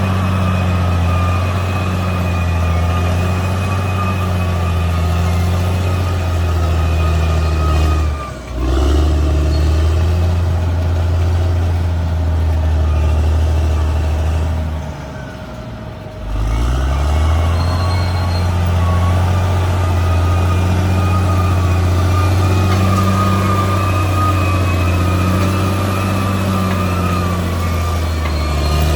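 Caterpillar D6R XL bulldozer's diesel engine running steadily under load, with a steady high whine above the engine note. The engine drops briefly about 8 seconds in and again for a second or two around the middle, then picks back up.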